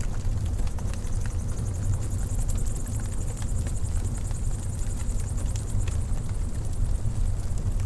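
Wood fire crackling in a fireplace: scattered sharp pops and fine crackle over a steady low rumble.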